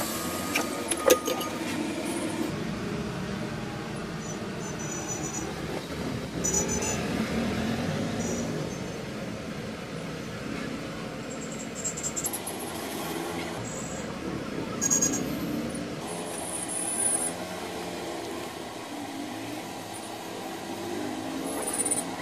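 Steady background traffic and street noise, with a few sharp clicks about a second in and scattered brief high rustles of hands handling the phone and plastic on the bench.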